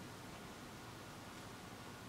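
Faint steady hiss of room tone, with no distinct handling sounds.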